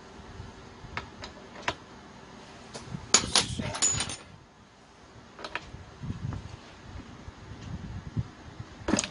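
Light metal clicks and rattles of hand tools and small fittings on a two-stroke brush cutter's fuel valve as it is worked loose. A quick run of clicks comes about three to four seconds in, with a few single clicks before and after.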